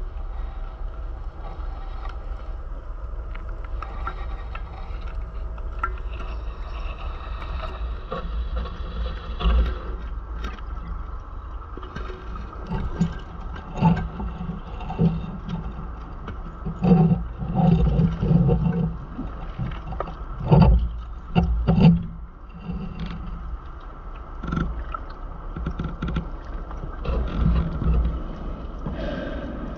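Underwater sound picked up by a diver's camera: a steady hiss broken by bursts of rumbling exhaust bubbles from the diver's breathing, clustered in the middle of the stretch.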